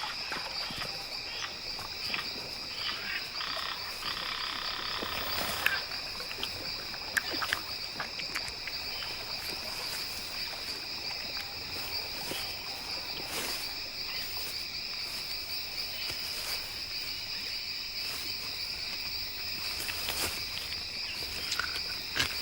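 Tropical night chorus of insects and frogs: a steady high-pitched insect buzz throughout, with a frog's call lasting about two seconds around four seconds in, and scattered short clicks.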